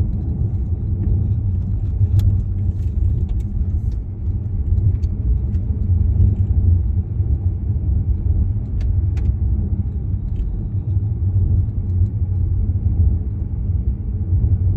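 Steady low rumble of a car in motion, road and tyre noise heard from inside the cabin, with a few faint clicks.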